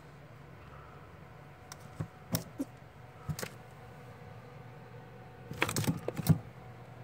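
Gray squirrels' sharp claws scrabbling and clicking on a plastic jar lid and windowsill: a few scattered clicks, then a busier burst of scrabbling near the end as one climbs over the other. A steady low hum runs underneath.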